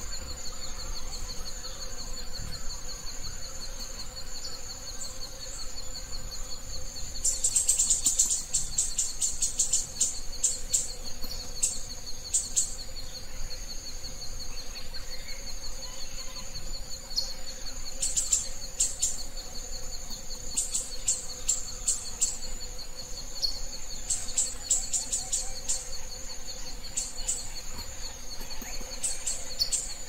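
Steady high-pitched insect trilling, cricket-like, with clusters of rapid high chirps breaking in about a quarter of the way through and again several times in the second half.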